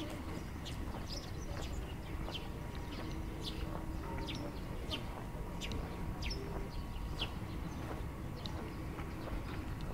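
Footsteps walking at a steady pace on a paved path, about two steps a second, over a low steady outdoor rumble.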